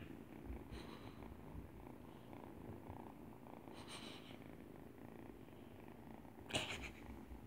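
Kittens purring steadily while being petted, with a few short rustles of handling, the loudest near the end.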